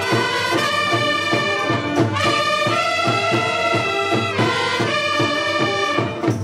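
Brass band playing a melody: saxophones and trumpets hold long notes together over a steady beat, with a brief break near the end.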